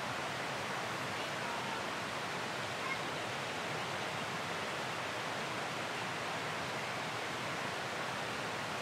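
Flowing water rushing steadily, an even unbroken hiss.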